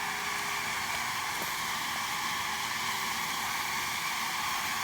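Steady buzzing of a mass of honey bees around an open hive. The colony is agitated, "very testy", which the beekeeper reads as acting queenless.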